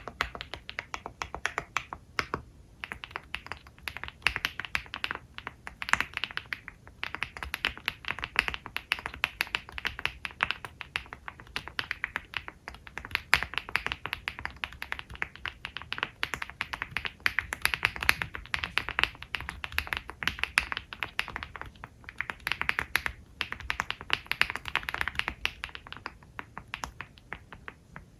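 Typing on a Wobkey Rainy 75 aluminium mechanical keyboard with a PP plate and pre-lubed HMX Violet linear switches, fully stock: fast runs of clacky, poppy keystrokes with brief pauses between bursts.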